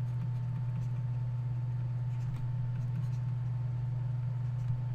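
Steady low electrical hum in the recording, with a few faint ticks from a stylus writing on a tablet.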